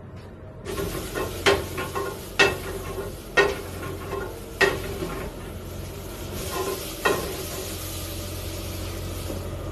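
Food sizzling in a pan on a commercial kitchen range over a steady low hum, with five sharp, ringing metal clanks of a utensil striking the pan over the first seven seconds.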